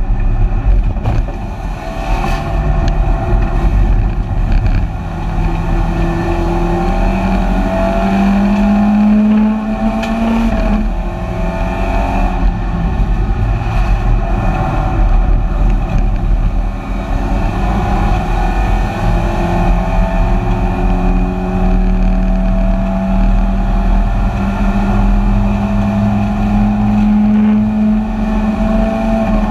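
BMW 318ti Compact race car's four-cylinder engine running hard, heard from inside the stripped cabin: its pitch climbs steadily, drops sharply at a gear change about ten seconds in and again near seventeen seconds, then climbs again for a long stretch.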